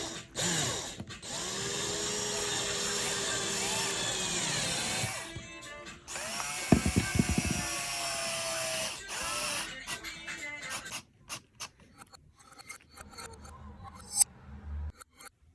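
A power drill running in several long runs, its pitch rising and falling as the speed changes, then a series of small clicks and knocks.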